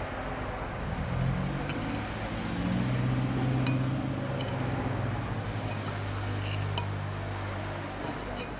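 Engine of a motor vehicle running in the background, a low steady hum that swells after about a second and fades near the end, with a few light clicks of a metal spoon against a terracotta bowl.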